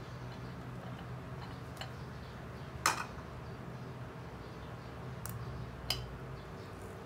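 A handful of sharp clicks and taps of kitchen utensils against a dish while boiled eggplant is peeled, the loudest about three seconds in, over a low steady hum.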